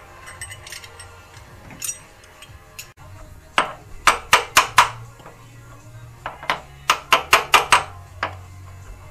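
Ratchet wrench clicking in two short runs, about four clicks a second, as it turns a puller drawing a rust-stuck crankshaft timing sprocket off, with background music underneath.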